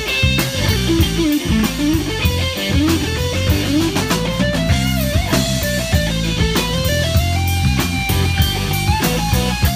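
Live rock band playing: an electric guitar plays a bending lead line over bass guitar and a drum kit keeping a steady beat.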